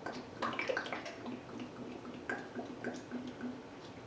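Cooking oil poured in a stream from a large plastic jug into a frying pan already holding some oil, making a faint, uneven pouring sound with small irregular splashes.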